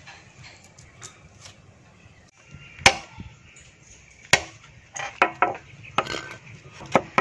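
Knife chopping on a wooden cutting board: a quiet start, then sharp, irregular chops from about three seconds in, coming closer together near the end.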